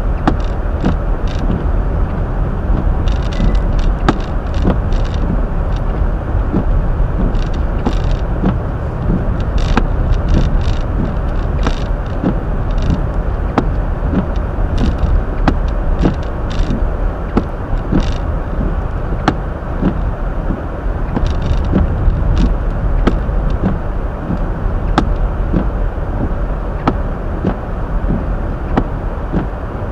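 Cabin road noise of a Hyundai Elantra driving on a snow-covered road: a steady low rumble of tyres and engine, with frequent short clicks and ticks scattered throughout.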